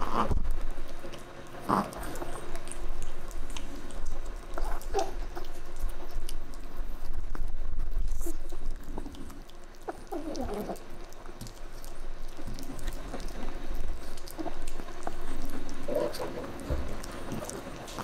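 Chihuahua gnawing and chewing on a calf neck bone: irregular wet chewing and clicks of teeth on bone.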